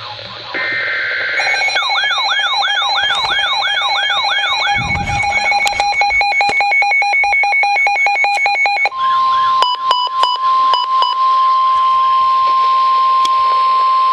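Weather alert radios going off for a NOAA Weather Radio severe thunderstorm warning. A second-long SAME data burst comes first, then a warbling siren alarm over steady tones, then rapid beeping. About nine seconds in, the steady 1050 Hz Weather Radio warning alert tone takes over.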